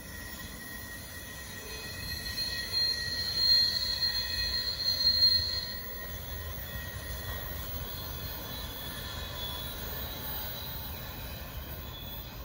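Freight train's double-stack container cars rolling away over the rails, their steel wheels squealing in a high, steady screech that is loudest from about two to six seconds in, over the low rumble of the moving cars.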